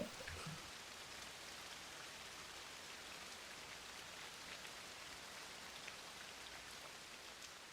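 Faint steady rainfall, an even hiss with occasional light drop taps, fading away near the end.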